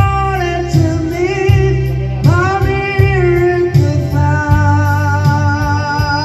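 A man singing a cover song into a microphone, with long held notes, over backing music with guitar and bass.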